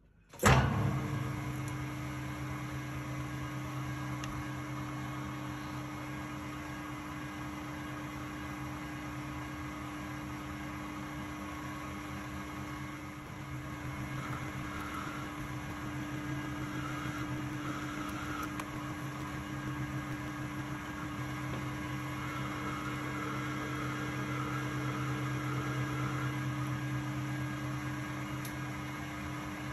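Metal lathe running steadily while a carbide threading insert cuts a 1.5 mm pitch thread in 4140 steel: a constant hum with a steady higher tone. It starts abruptly with a brief loud burst and gets slightly louder about halfway, where faint repeated high chirps from the cut come and go.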